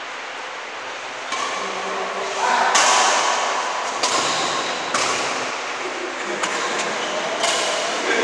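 Badminton racquets hitting a shuttlecock back and forth in a rally: about six sharp hits, roughly a second apart, each ringing briefly in the hall.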